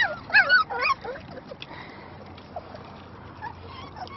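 Puppies whining in a quick run of short, high, wavering yelps for about the first second, then only faint sounds.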